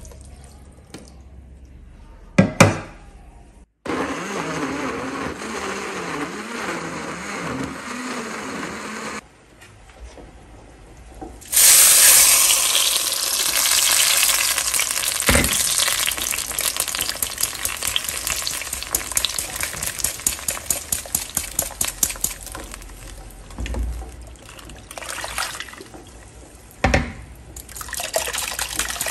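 Countertop blender running for about five seconds, puréeing chiles and tomatoes with water. Then the guajillo chile sauce is poured through a wire-mesh sieve into a clay pot of hot oil and sizzles suddenly and loudly, dying down slowly under a quick run of scrapes and taps at the sieve.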